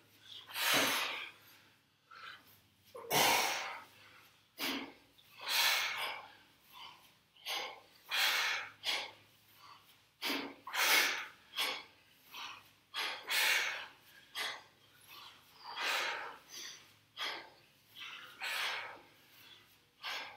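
Sharp, forceful breaths out from people doing kettlebell swings, one breath with each swing, coming about once a second with the two swingers out of step.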